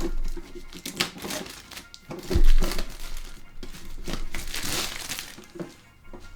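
Plastic shrink wrap crinkling and tearing as it is peeled off a sealed tin, with sharp crackles and longer rustles. The loudest crackle comes about two and a half seconds in.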